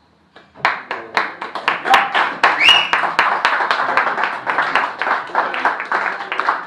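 Small audience applauding with many hands clapping fast, starting about half a second in after a moment of silence. A brief high rising call rises out of the clapping about two and a half seconds in.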